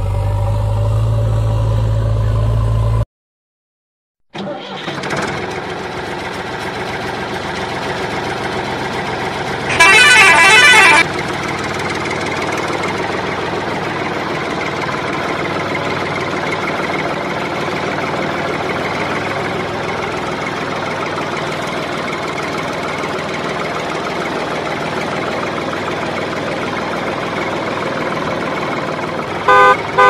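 Vehicle engine sound effect running steadily, with a brief cut to silence about three seconds in. A loud, wavering truck horn blast comes about ten seconds in, and short horn toots near the end.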